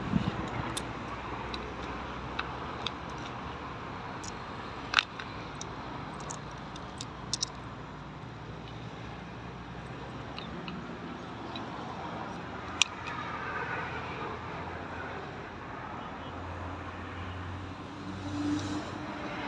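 Vauxhall Astra engine idling steadily, with a few sharp clicks. The engine has a misfire.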